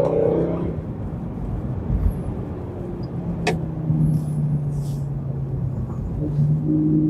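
Mercedes-Benz C63 AMG's 6.2-litre naturally aspirated V8 heard from inside the cabin, its note easing off in the first second and then running steadily at cruising revs. One sharp click about three and a half seconds in.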